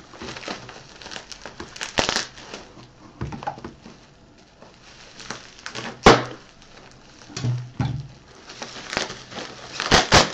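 Bubble wrap and plastic packaging crinkling and rustling as it is unwrapped by hand. There are sharp knocks about six seconds in and again near the end.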